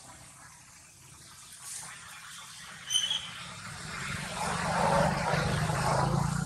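A motor vehicle passing, its engine hum swelling from about four seconds in and loudest near the end. A short high chirp comes about three seconds in.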